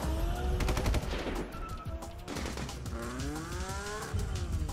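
Action-trailer soundtrack: rapid machine-gun fire sound effects over music, with pitched tones sliding up and down.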